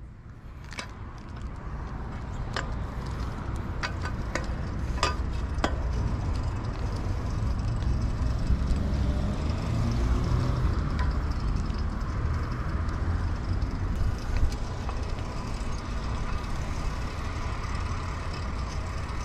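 Wind buffeting the microphone of a fixed-gear bike being ridden, a steady low rumble that grows louder over the first few seconds. There are a few sharp clicks in the first six seconds.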